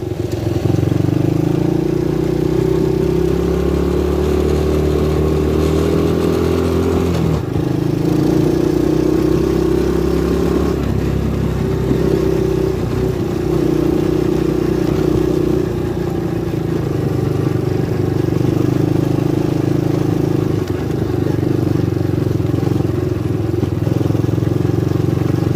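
Lida 250cc ATV engine running under way, its pitch climbing slowly for about seven seconds, then dropping sharply and holding fairly steady with small rises and dips.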